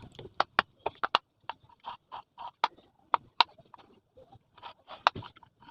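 Irregular sharp clicks and knocks from ceiling fan housing parts being handled and fitted together after a bearing change.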